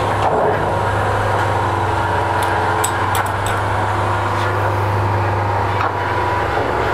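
The tug's Cummins marine diesel engines running steadily with a low, even hum. A few light clicks come about three seconds in.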